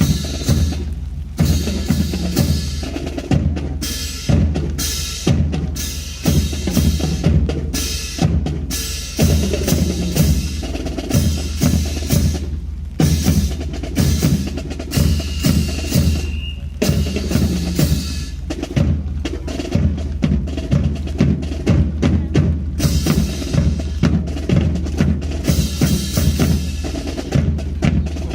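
Drum corps percussion playing a fast cadence: snare drums and bass drums striking together in dense, driving rhythms throughout. A brief steady high tone sounds about halfway through.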